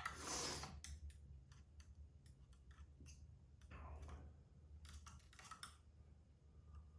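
Faint scattered clicks and light handling noise, as of small parts being touched and moved, with a few brief soft rustles.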